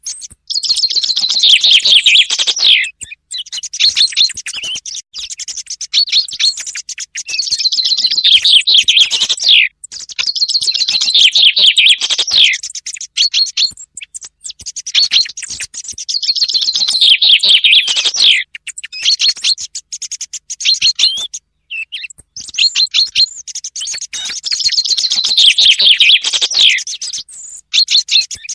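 Common chaffinch song, repeated about six times: each song is a rapid trill of two to three seconds that falls in pitch and ends in a flourish. Shorter phrases of a song thrush are mixed in between, more faintly.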